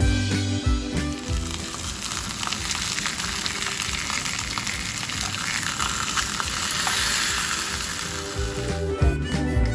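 Sausages sizzling steadily in hot oil in a nonstick frying pan, with a few light clicks of metal tongs turning them. Background music comes back in near the end.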